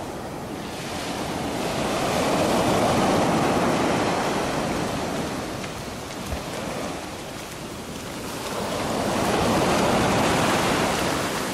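Surf breaking and washing up a sandy beach: two waves swell in, one about two seconds in and another near the end, each a rising and falling rush of water.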